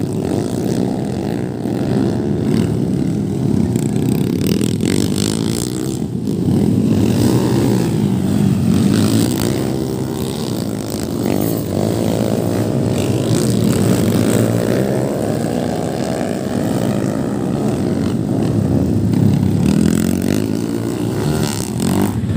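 Underbone motorcycle engines racing, their pitch rising and falling as they rev up and back off throughout.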